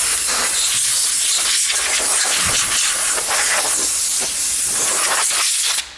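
Compressed-air blow gun blasting a steady loud hiss into a car's rear hub mounting, blowing out dirt and rust where the hub has just been removed. The hiss flutters a little and cuts off sharply near the end.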